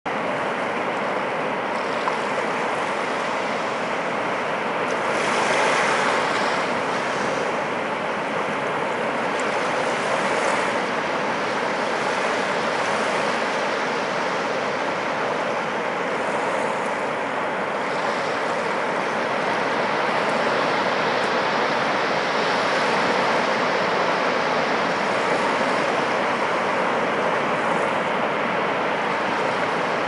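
Small sea waves washing up the beach and drawing back in a continuous rush of surf, with one louder wash about five seconds in.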